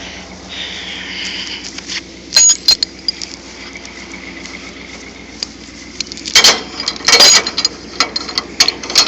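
An engine idling steadily, with sharp metallic clanks and clinks twice a few seconds apart, then a quicker run of them in the last three seconds.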